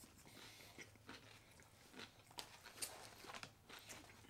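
Two people chewing bites of Subway sandwiches: faint, scattered crunches of bread and wet mouth clicks.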